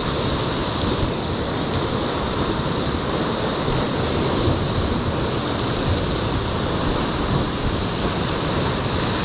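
Ocean swell surging and breaking against rock ledges: a steady, unbroken wash of whitewater.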